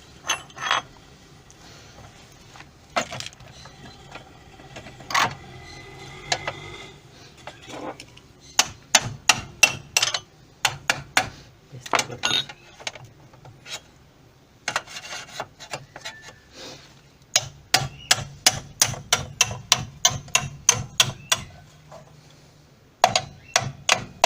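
Hammer blows on a chisel against the base of a seized bearing in a Mabe washing machine transmission, in runs of sharp strikes about two a second with brief pauses. Scattered knocks come first. The bearing is stuck fast because water has got past its seals.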